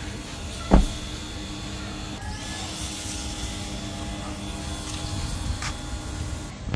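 A car door shutting with one heavy thud about a second in, most likely the Toyota Fortuner's rear passenger door, over a steady low hum.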